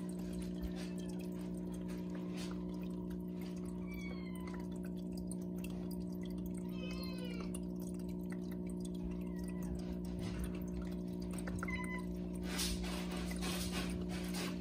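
Small pump of an automatic pet water fountain humming steadily with a trickle of water, while a kitten laps at it; short high cat mews come several times.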